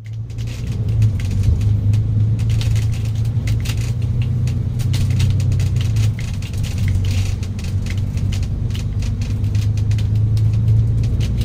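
A steady low rumble of a double-decker bus's engine heard from inside the upper deck, with frequent light rattles and clicks from the bus body.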